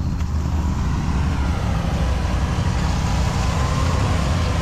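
Off-road vehicle engine running steadily and loudly, with a faint thin whine held through it.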